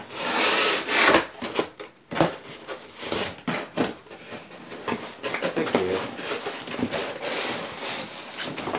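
Cardboard scraping and rubbing in a run of uneven strokes as a fitted cardboard insert is worked loose inside a shipping box, loudest in the first second or so.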